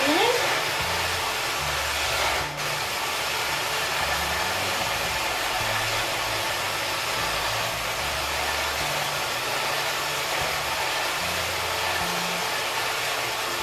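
Handheld electric mixer running steadily at one speed, beating a liquid egg-and-milk mixture in a pot, with a brief dip about two and a half seconds in.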